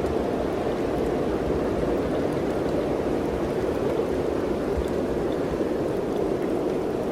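Mountain wind blowing steadily, a continuous rushing with a low, uneven rumble beneath it.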